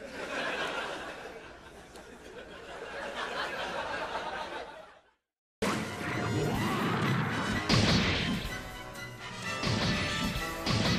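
Audience laughter that swells and then fades away over about five seconds. After a short gap of silence, loud music begins with repeated crashing impacts.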